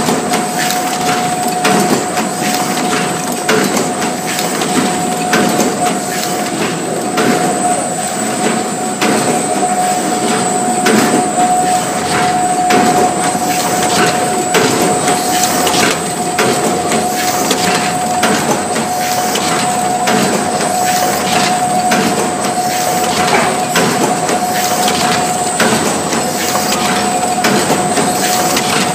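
Paper bowl forming machine running at speed: a fast, even rhythm of mechanical clacks and knocks over a steady whine at one pitch.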